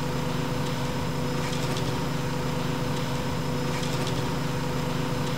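Steady mechanical hum of the plant's machinery, even and unbroken, with several fixed humming tones.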